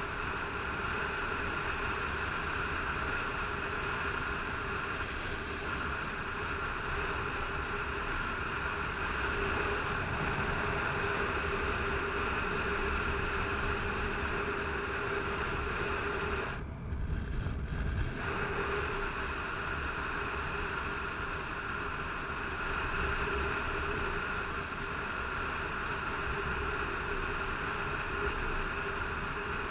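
Motorcycle cruising at highway speed, heard from a helmet-mounted camera: a steady rush of wind over the engine's drone. About two-thirds of the way through, the sound turns muffled and rumbly for a second or so as wind buffets the microphone.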